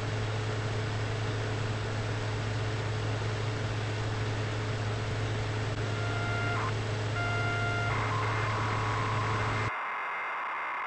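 Steady electrical hum with a hiss of static, broken by two short electronic beeps about six and seven seconds in, then a steadier beep tone; the hum and hiss cut off suddenly near the end, leaving the tone.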